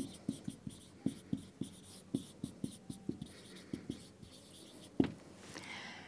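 Whiteboard marker writing on a whiteboard: a run of short, quick strokes for about four seconds, then one sharper click about five seconds in.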